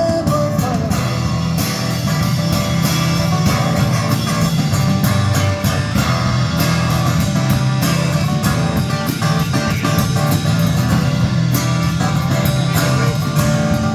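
Instrumental break of a rock song: guitars playing with bass and a steady beat, no singing.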